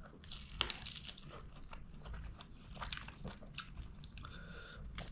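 Close-miked chewing of a handful of rice and chicken curry: irregular wet smacks and sharp clicks of the mouth, the loudest about half a second in.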